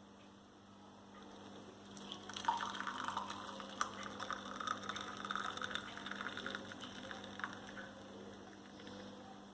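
Herbal decoction poured from a pan through a strainer into a cup, starting about two seconds in and tailing off near the end.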